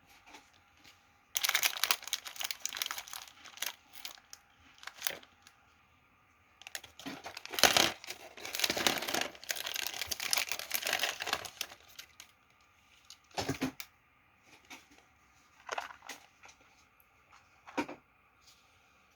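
Plastic snack packaging crinkling and tearing in two long bursts, followed by three short separate snaps or clicks later on.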